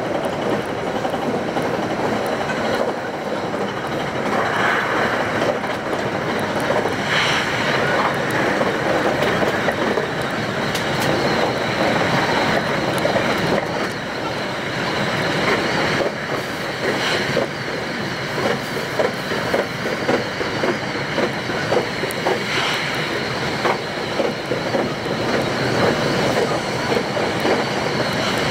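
Electric commuter train running on single track, heard from the driver's cab, with wheel clatter and rail noise. The footage is played at ten times speed, so the rail joints and wheel noise run together into a dense, fast rattle.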